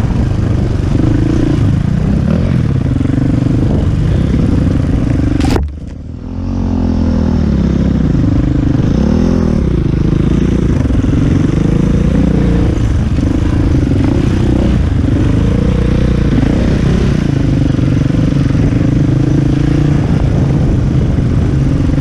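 KTM EXC450 enduro motorcycle's single-cylinder four-stroke engine running under riding load, its revs rising and falling. About five and a half seconds in there is a sharp click and the sound drops away briefly before the engine note returns.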